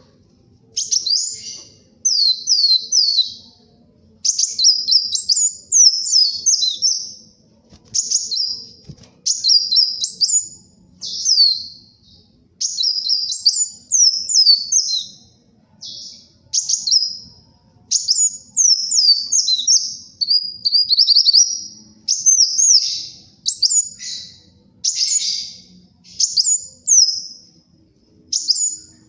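Kolibri wulung sunbird singing: a long run of short, rapid, high-pitched chirping phrases, each lasting about a second, with brief pauses between them.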